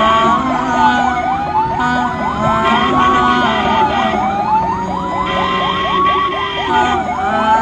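Ambulance siren sounding continuously. A wail rises and falls about every three seconds, with a fast warbling yelp layered over it.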